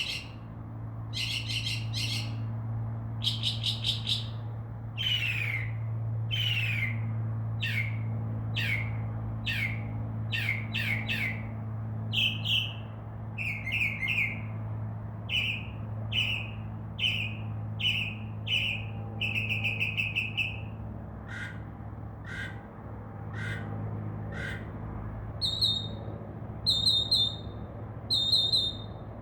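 Northern mockingbird singing, a string of varied phrases each repeated several times: rapid buzzy trills, down-slurred whistles and short chips, some lower notes a little past the middle. A low steady hum runs underneath.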